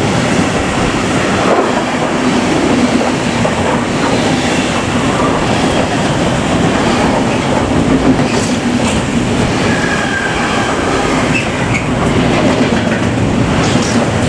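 A train passing close by: a loud, steady rumble of wheels rolling on the rails, with a brief faint wheel squeal about two-thirds of the way through.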